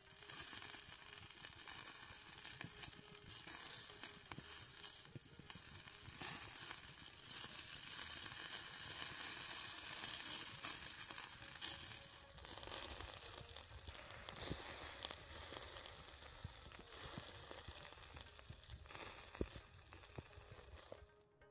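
Marinated chicken legs sizzling in a wire grill basket over hot charcoal: a steady hiss with scattered crackles.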